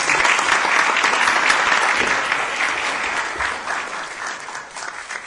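Audience applauding, a dense patter of many hands clapping that swells at once and dies away near the end.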